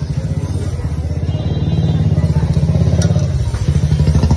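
Steady low rumble of an engine running close by, with a fast, even pulse.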